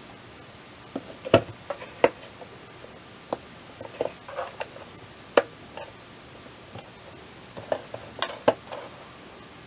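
A thin metal pick prying at the seams of a black plastic igniter housing: irregular sharp clicks and short scrapes of metal on plastic as the case is worked open.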